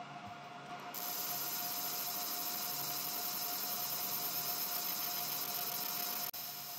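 ComMarker Omni 1 UV galvo laser engraver running while it engraves a leaf: a steady hiss of fan noise with a faint constant tone. The hiss comes up about a second in and cuts out for an instant near the end.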